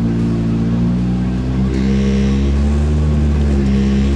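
Polaris RZR Pro R's 1997 cc inline four-cylinder engine working under load as the side-by-side crawls through a rut, its revs holding and then stepping up and down.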